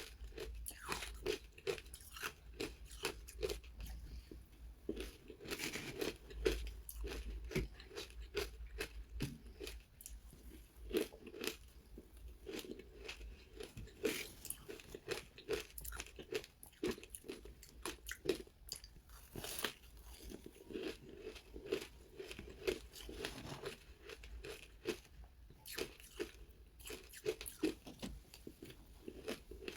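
Close-miked crunching and chewing of soft, powdery frozen ice: dense, irregular crackles and crunches of bites being chewed.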